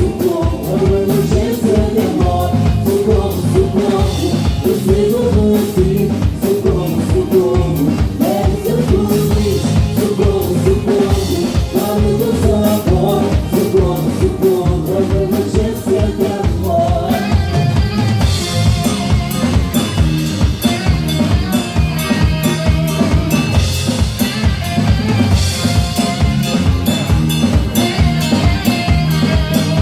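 Live band playing an instrumental passage with a steady, busy drum-kit beat of kick and snare under a melodic line; about halfway through, brighter high-pitched instruments join in.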